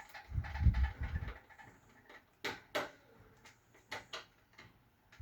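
Handling noise from hands working wires into a connector terminal: a low rumble of knocks early on, then a few sharp, separate clicks.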